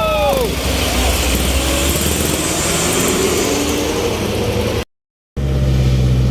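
Truck engine running with a steady low hum, broken by a half-second dropout to silence near the end.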